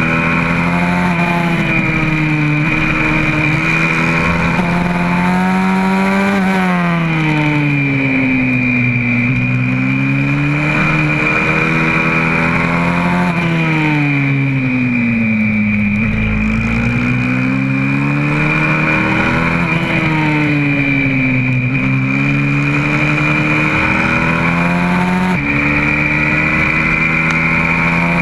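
YCF 125cc four-stroke single-cylinder pit bike engine heard on board at racing speed, its pitch climbing and falling again and again as the rider accelerates out of corners and brakes into them. Quick drops in pitch mark gear changes, one of them about three-quarters of the way through.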